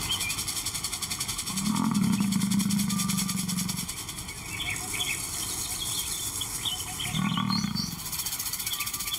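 Male lion giving two low roaring calls, the first about two seconds long and the second shorter, near the end.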